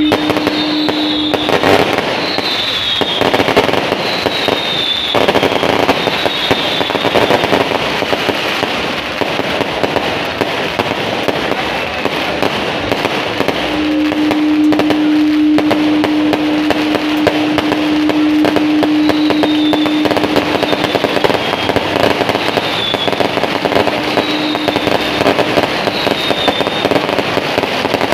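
Aerial fireworks going off continuously: dense crackling and popping with sharp bangs. A steady tone sounds over it through the middle, and a short high falling chirp repeats every second or so near the start and again in the second half.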